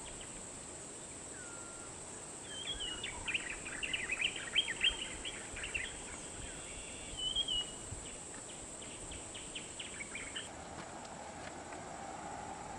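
Birds chirping and whistling in a quick cluster of short calls over a steady high insect drone. About ten seconds in the drone stops and a faint vehicle engine hum takes over.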